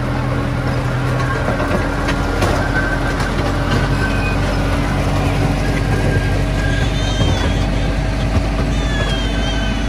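Park train running along its track, heard from aboard: a steady engine hum and rumble. A few short high chirps come in near the end.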